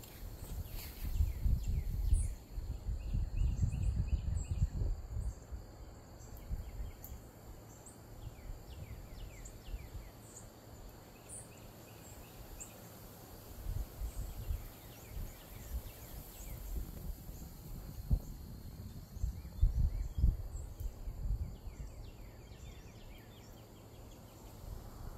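Outdoor ambience: birds chirping and giving short falling calls, over a faint steady high insect-like hum. Low rumbles of wind on the microphone come and go and are the loudest part.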